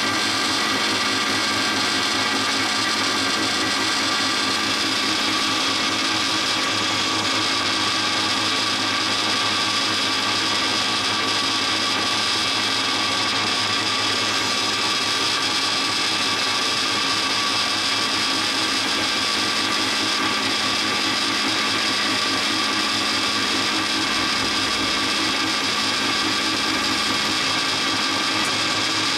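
DoALL C-70 horizontal band saw running steadily in automatic cycle: a constant mechanical whine of several steady tones that holds level without pause.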